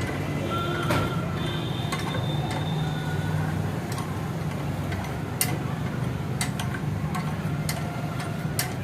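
Irregular sharp metallic clicks and taps, a few per second, from hand work on a motorcycle shock absorber. They sit over a steady low hum, with brief high tones in the first few seconds.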